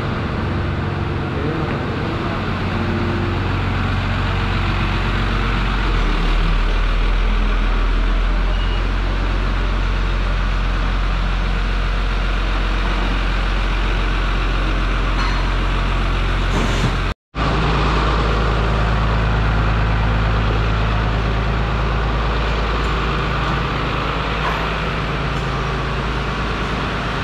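A truck-mounted crane's diesel engine running steadily. The sound cuts out for a moment about seventeen seconds in, then carries on.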